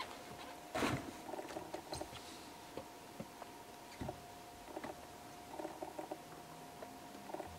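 Hard-shell rooftop tent being closed by hand: rustling of the tent fabric with a thump about a second in, followed by scattered light taps and clicks from the shell and its fittings. A faint steady whine sits underneath.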